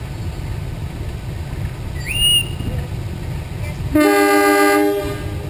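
A diesel locomotive's horn sounds one loud chord of several tones for about a second, starting about four seconds in, over the steady low rumble of its idling engine. A short rising high whistle comes about two seconds in.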